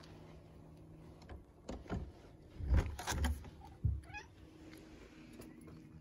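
A few low thumps as a rusty steel shed door is pulled open, then a cat gives one short, rising meow about four seconds in.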